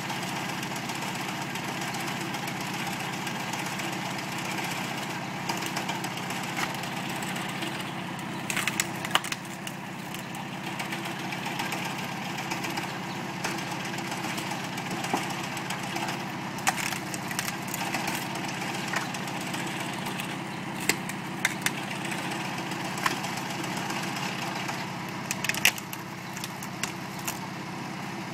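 Hakotrac 1900D compact tractor's diesel engine running steadily as it drives a homemade screw-cone log splitter. Sharp cracks and splintering of firewood come several times as the spinning cone bores into logs and bursts them apart.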